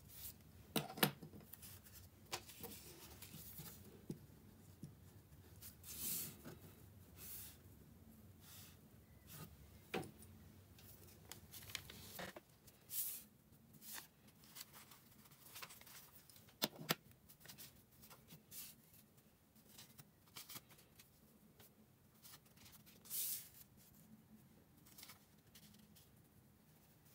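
Pencil work and small paper cards being handled and laid down on a tabletop: faint scattered rustles and soft taps, a few sharper than the rest.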